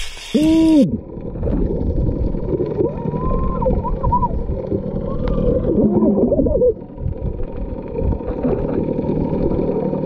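A splash as a person jumps into the sea off a boat, then the muffled sound of a camera held underwater: a dull low rumble with a few gliding squeaks rising and falling above it.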